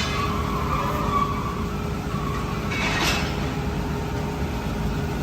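Steady factory machinery rumble with a faint constant hum, and one short hiss about three seconds in.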